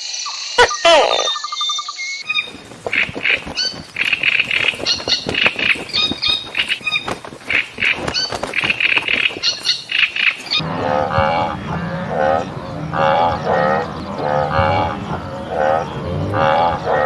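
A series of animal calls, changing in kind twice: brief chirps and glides, then a quick run of high, short calls, then lower repeated calls from about ten seconds in.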